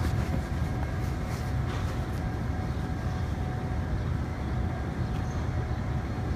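Steady low outdoor rumble of background noise with a faint steady hum above it, and a few faint ticks about one to two seconds in.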